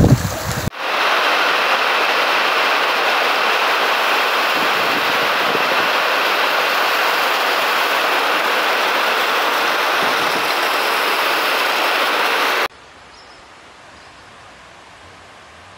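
Heavy rain with runoff pouring off a roof edge and splashing onto the ground: a steady, loud rush of water. It opens with a moment of wind buffeting the microphone in the rain. Near the end it cuts suddenly to a much fainter, steady rush of water.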